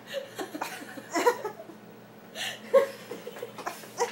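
People chuckling and laughing softly in short breathy bursts.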